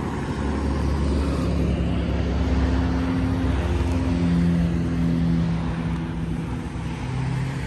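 A large vehicle's engine running close by: a steady low rumble with a hum on top that drops in pitch a couple of times.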